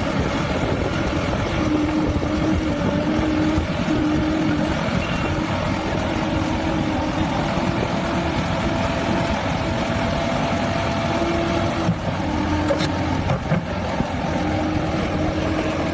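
Excavator's diesel engine running steadily, with a hum that drops out and returns several times.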